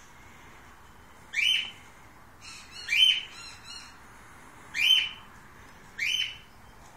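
An animal calling: four short, high-pitched calls about one and a half seconds apart, each about half a second long and falling in pitch.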